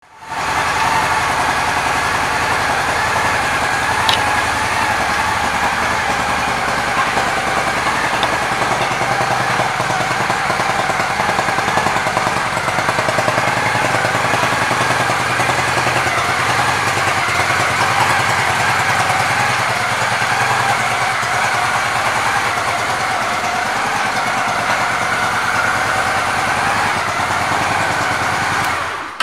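Honda Shadow ACE 750's V-twin engine idling steadily.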